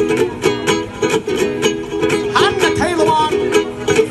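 Ukulele strummed in a steady rhythm, playing the lead-in to the next verse of a children's sing-along song. About two and a half seconds in, a few short vocal calls sound over the strumming.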